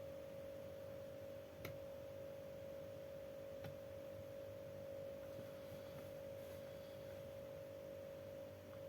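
A faint steady pure tone, like an electronic whine, with two light clicks, one a little under two seconds in and another about two seconds later.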